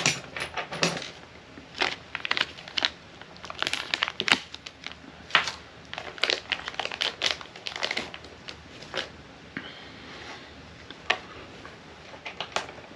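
Plastic packaging crinkling and rustling in irregular bursts as small parts are handled, with sharp clicks and taps scattered throughout.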